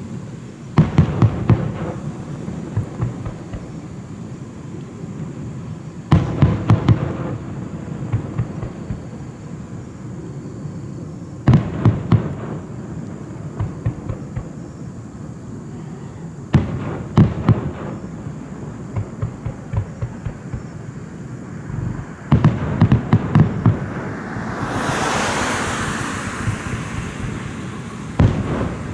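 Fireworks bursting: a cluster of several booms about every five seconds, with a long hissing crackle of a few seconds near the end.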